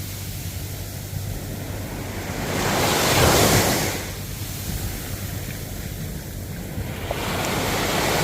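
Ocean waves breaking and washing ashore: one surge swells up about three seconds in and dies away, and another builds near the end.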